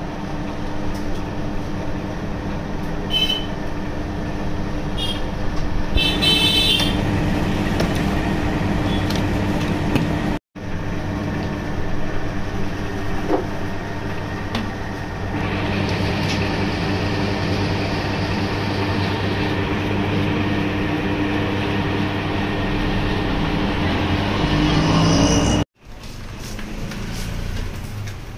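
Steady mechanical hum of a running electric ice cream machine, with a constant low drone and a steady tone. A few short, high horn-like toots sound between about three and seven seconds in.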